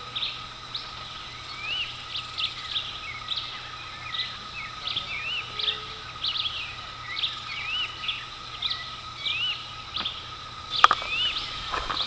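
Tropical rainforest birds calling over and over: short whistles that arch up and down and quick upward slurs, several each second, over a steady high hum. A few sharp knocks come near the end.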